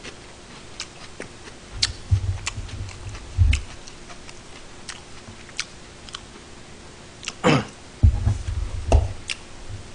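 Light eating and handling noises at a table: scattered soft clicks and two short runs of dull low thumps, with a faint steady hum underneath.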